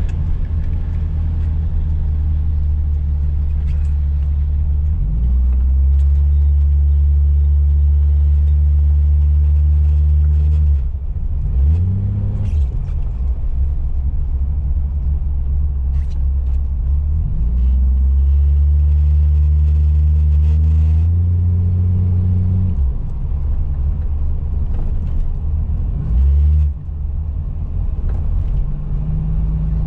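1975 Plymouth Duster's slant-six engine heard from inside the cabin while driving slowly on snowy streets. Its low note swells and eases off several times as the throttle is opened and let off.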